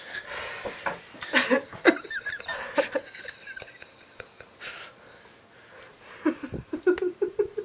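A woman giggling softly, breaking into a short run of quick laughs near the end.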